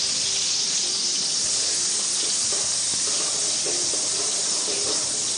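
Finely chopped onions sizzling in hot oil with cumin in a steel kadai: a steady hiss of frying.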